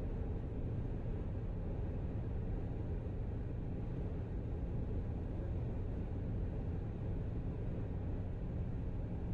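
Car cruising at highway speed: a steady, low rumble of road and engine noise.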